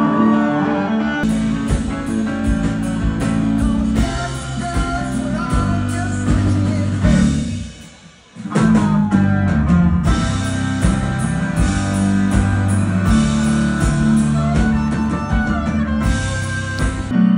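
Live rock band playing: guitars over a drum kit. The music drops away briefly about eight seconds in, then starts again at full level.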